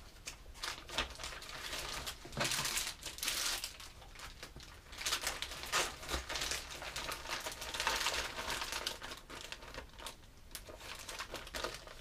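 Plastic crinkling in irregular bursts as soft plastic bait packets are handled and pushed into a clear zip-top bag.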